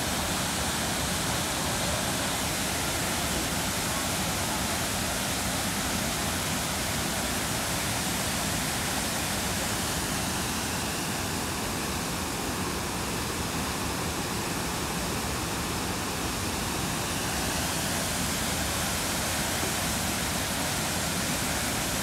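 A waterfall pouring over a broad rock ledge into a river: a steady rushing of falling water that does not let up.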